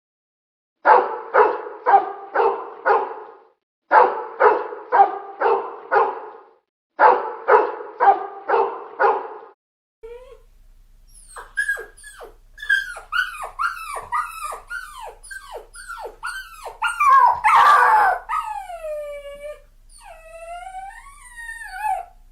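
Dog barking in three quick bursts of about five barks each, then high yelping cries that fall in pitch, roughly two a second, a louder outburst, and long wavering whines near the end.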